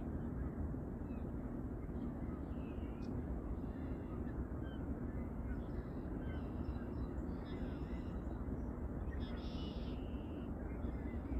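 Birds giving short, repeated calls over a steady low outdoor rumble, the loudest call coming near the end.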